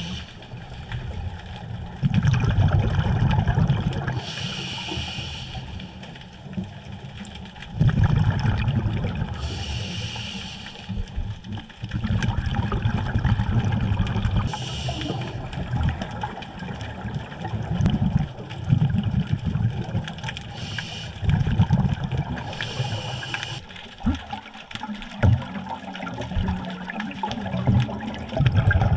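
Scuba diver breathing through a regulator underwater: exhaled bubbles rumble and gurgle past the microphone in surges about every five to six seconds, with a short hiss between them.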